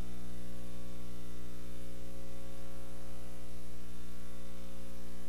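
Steady electrical mains hum, a low buzz with its evenly spaced overtones, over a light hiss, unchanging throughout.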